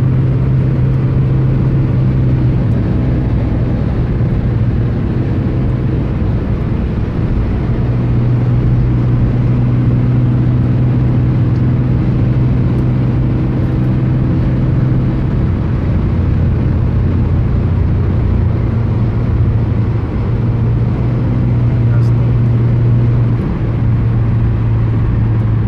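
Car engine drone and tyre and road noise heard inside the cabin at highway speed: a steady low hum whose pitch shifts slightly a few times.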